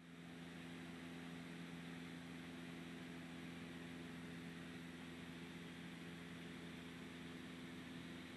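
Cabin drone of a single-engine Cessna in flight: engine and propeller running steadily, a constant low hum over an even hiss, fading in at the start.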